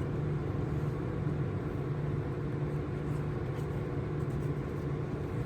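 Steady low hum with an even background hiss, unchanging throughout, with no distinct handling sounds standing out.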